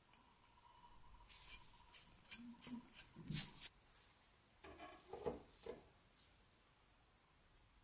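Restored steel scissors being handled: a quick run of about seven sharp metallic clicks, then a few duller knocks a couple of seconds later.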